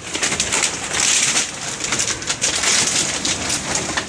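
Plastic bottles being handled and tossed during sorting, a dense run of crinkling and clattering with many sharp clicks.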